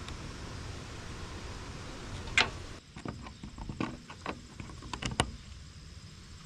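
Small parts being handled during fuel-line work on a small engine: a sharp click about two and a half seconds in, then a string of scattered light clicks and knocks over a low background rumble.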